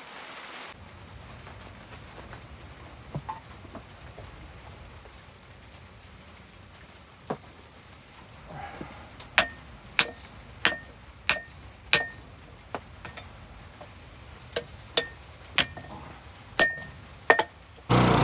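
Rounding hammer striking a red-hot damascus steel billet on an anvil, each blow a sharp ringing clang. A few scattered knocks come first, then two runs of blows at about one and a half a second, from about halfway in. Right at the end the small engine of a converted log-splitter press starts running.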